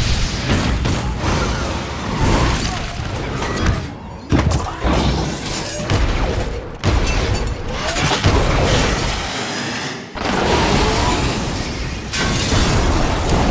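A string of sound-design effects, one after another: deep booms and heavy impacts with rushing, sweeping noise and gliding tones, each cut off abruptly after a few seconds and replaced by the next.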